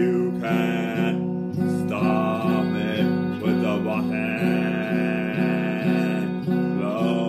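Electric guitar strummed in a steady, repeated chord rhythm, with a man singing long held notes over it.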